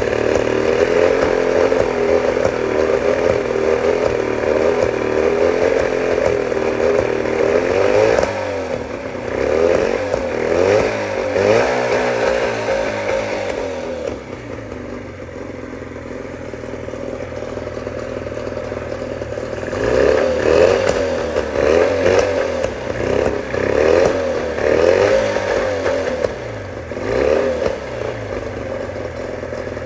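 1989 Johnson 40 hp two-stroke outboard running, steady at first, then surging unevenly, its speed rising and falling repeatedly with a quieter low-speed stretch in the middle. The owner suspects a misfire.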